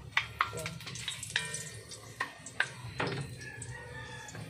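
Wooden ladle stirring garlic frying in oil in a metal wok, scraping and knocking against the pan several times at uneven intervals, over a faint sizzle.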